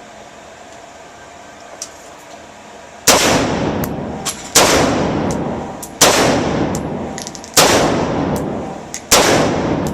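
AR-15 rifle with a Disintegrator flash suppressor firing five single shots of 55-grain 5.56 mm ammunition, about a second and a half apart, the first about three seconds in. Each shot rings on in a long echo, with small clinks between shots.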